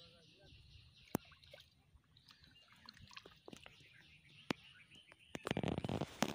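Faint birds chirping in the background, with a few sharp clicks. About five seconds in, a louder burst of rustling and crackling at the woven bamboo fish basket.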